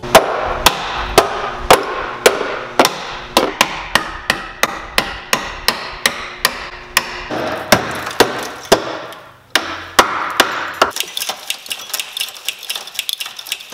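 Hammer blows on the steel of a car's rusted frame rail, about two sharp, ringing strikes a second, knocking the rotted section loose. After a short pause about nine seconds in, quicker, lighter metal taps and clinks follow.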